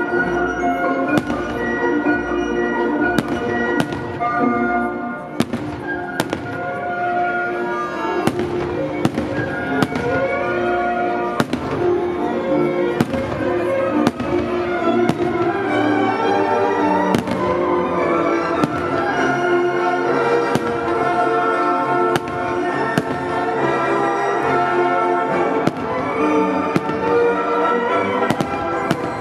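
Aerial firework shells bursting in a rapid, irregular string of sharp bangs, about one or two a second, over loud music.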